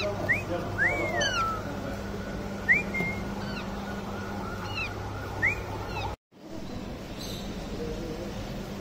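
Parrot chicks in a shop enclosure giving short, rising, whistled calls, about half a dozen in the first six seconds, over a steady low hum. The sound cuts out abruptly about six seconds in, after which only the hum is left.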